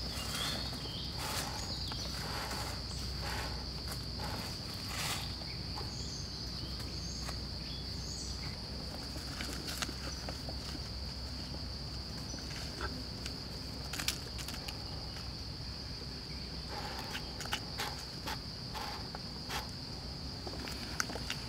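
Steady high-pitched drone of insects, with scattered short rustles and crackles of dry leaf litter being disturbed by hands digging on the forest floor.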